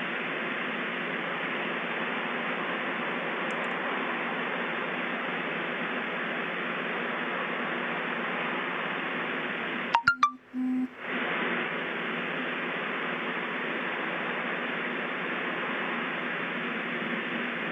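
Steady rushing noise. About ten seconds in it breaks off for roughly a second with a few sharp clicks, then resumes.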